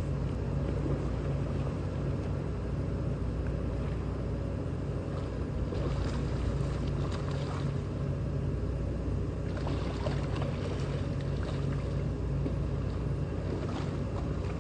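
An engine running steadily: a low, even droning hum with faint irregular noise over it.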